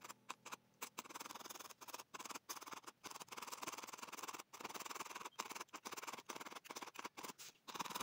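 Barbed felting needle jabbing rapidly into wool roving on a felt base, a fast, soft scratchy crunching that keeps breaking off for split-second pauses.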